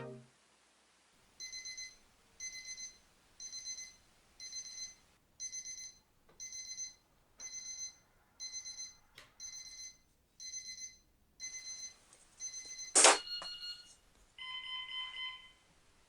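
Electronic alarm beeping in pulsed, high-pitched bursts, about one burst a second, for around eleven seconds. It then stops, a sudden loud hit follows, and a different steady electronic tone sounds for about a second and a half near the end.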